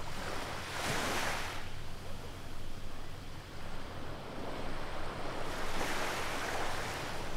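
Small waves washing up a sandy beach, two swells of surf about a second in and again near the end, over a steady low rumble.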